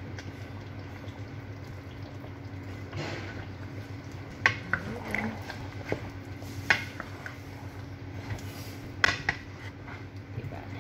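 Wooden spatula stirring a thick chicken and potato curry in a pan, knocking against the pan several times in sharp clicks during the second half, over a steady low hum.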